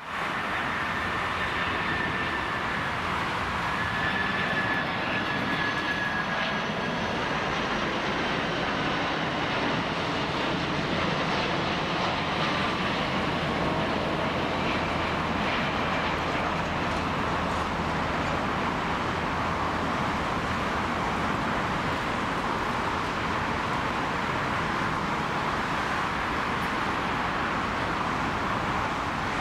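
Lufthansa Cargo McDonnell Douglas MD-11F three-engine jet freighter landing: a steady jet roar, with a high engine whine that slowly falls in pitch during the first several seconds of the approach.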